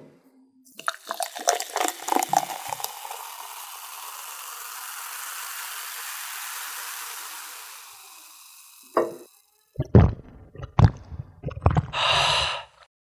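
A soft drink poured into a glass, followed by a long fizzing hiss of foam that swells and dies away. Then several loud gulps and a satisfied exhaled 'ahh' after the drink.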